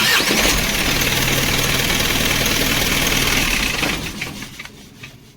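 Isuzu truck's diesel engine starting abruptly and running for about four seconds, then cutting out and dying away.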